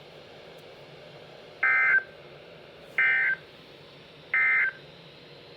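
Emergency Alert System end-of-message signal: three short bursts of SAME digital data tones, each about a third of a second long and a little over a second apart, marking the end of the alert.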